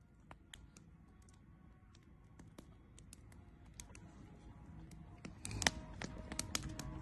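Faint, irregular crackling clicks, with background music swelling in over the last second or two.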